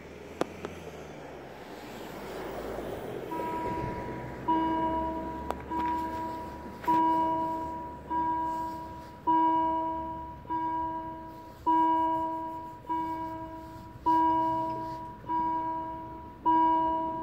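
Level crossing warning bell striking about once every 1.2 seconds, each stroke a ringing tone that dies away before the next, signalling that a train is approaching. It starts about three seconds in, after a swelling rush of noise.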